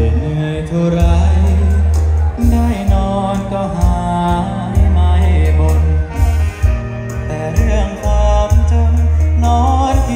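Live band music with singing, played loud through a concert PA system over a heavy bass line.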